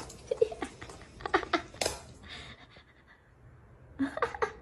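Short, high-pitched vocal sounds in three clusters, with a quiet spell between the second and third.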